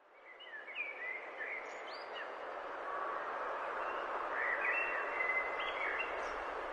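Birds chirping and calling over a steady noisy outdoor background, fading in over the first second: a recorded nature ambience.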